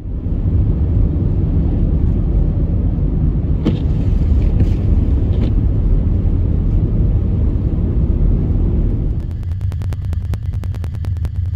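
Steady low road rumble of a vehicle driving on a snowy road, heard from inside the cab, with a few clicks about four to five seconds in. About nine seconds in it gives way to electronic music with a quick, steady beat.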